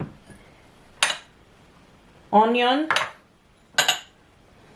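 Two sharp clinks of dishes, about a second in and again near four seconds in, as bowls or plates of ingredients are handled and set down.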